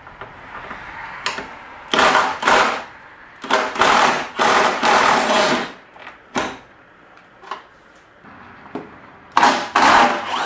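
Cordless drill running in several short bursts, backing out the fasteners that hold the golf cart body on.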